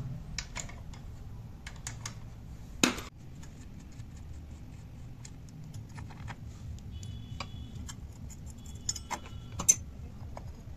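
Metallic clicks and clinks of hand tools and parts as the nut comes off a scooter's CVT variator and the variator face is handled. There is one sharp metal clank about three seconds in and a few short ringing metal taps near the end.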